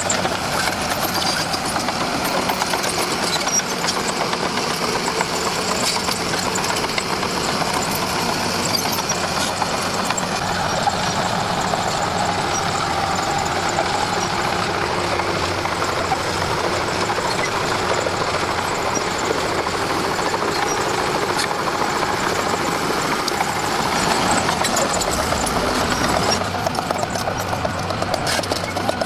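Diesel engine of a Komatsu D41P bulldozer running steadily.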